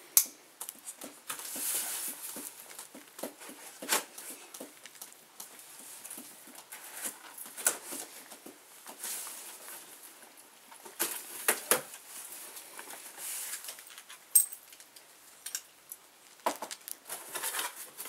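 A small cardboard box being handled and opened by hand: irregular clicks, knocks and scraping of cardboard, with a few louder knocks along the way.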